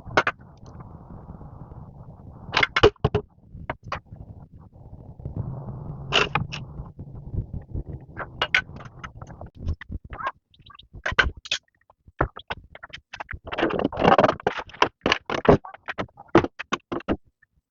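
Irregular knocks, taps and clatter, sometimes singly and sometimes in quick runs, coming more thickly in the second half, over a low rumble that fades out after about seven seconds.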